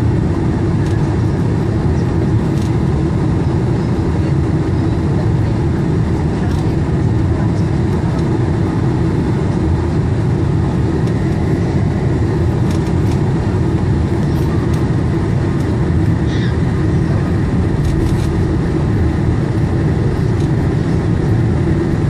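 Steady low rumble of a Boeing 747-400's engines and rushing air heard inside the passenger cabin during the descent to land, with a steady hum running through it.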